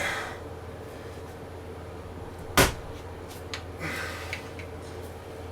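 A sharp metallic knock about two and a half seconds in, with softer scraping and handling noises before and after it, as the mini mill's head is worked into position, over a steady low hum.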